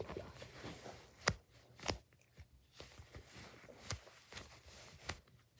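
Foam squishy toy being squeezed and kneaded by fingers: soft rubbing and crinkling of the foam with a handful of sharp clicks and crackles scattered through.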